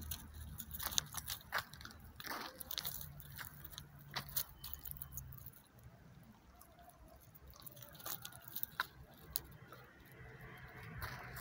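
A dog crunching and chewing food in irregular crunches. They come thick over the first five seconds, then fewer and fainter.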